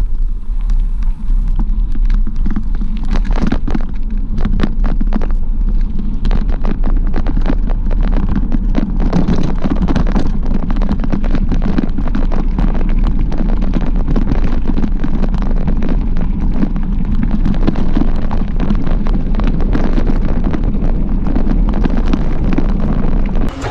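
Mountain bike rolling over a gravel track: a steady rumble of tyres on loose stones with constant crunches and jolts, and wind buffeting the microphone.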